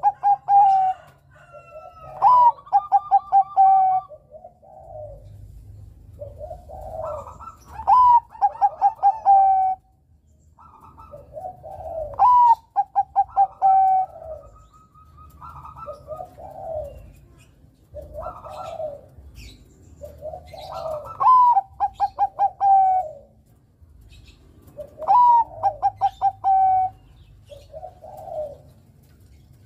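Perkutut Bangkok (zebra dove) cooing its song over and over. Each phrase opens with a rising note and runs into a quick string of rolling pulses, with a few seconds of shorter, softer coos between the phrases.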